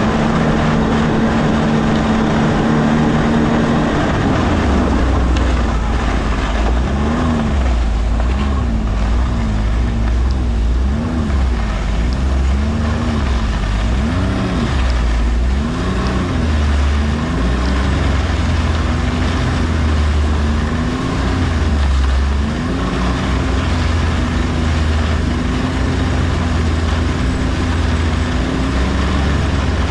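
A vehicle engine running under load. Its pitch is steady at first, then rises and falls again and again for much of the stretch before evening out near the end, with a steady low hum underneath.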